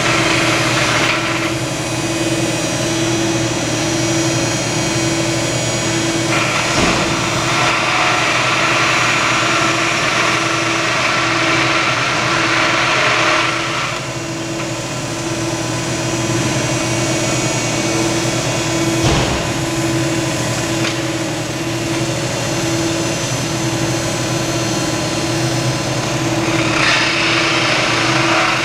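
Cordless drill running a cutter through a tubular trike cross member clamped in a notching fixture, drilling its holes and coping the ends. The cut gets harsher and brighter in spells: at the start, for several seconds from about six seconds in, and again near the end, over a steady pulsing hum. Two dull knocks come at about seven and nineteen seconds.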